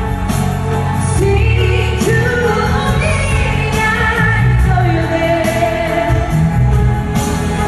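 Live pop ballad played loud through an arena sound system: a woman singing long, held notes over a band with heavy bass and a steady drum beat.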